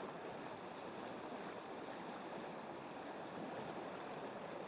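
River water flowing over the streambed: a steady, even rushing.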